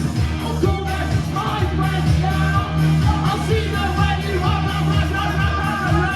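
A live rock band playing a song with a singer's voice over it: steady bass, guitar and a regular drum beat.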